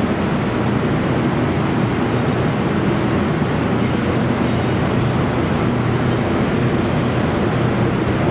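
A Westinghouse-Amrail R68 subway train rumbling through the tunnel as it approaches the station. The rumble and rail noise hold steady, with a low hum under them.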